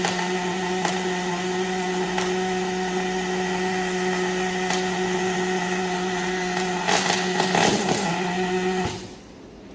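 Longitudinal seam welding machine running a weld pass: a steady electrical hum with a rougher crackling stretch near the end, cutting off abruptly about nine seconds in as the weld stops.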